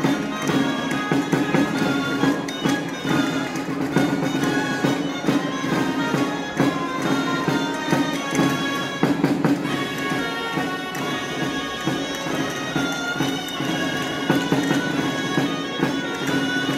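A group of gralles (Catalan double-reed shawms) playing a lively folk dance tune over a steady low held note.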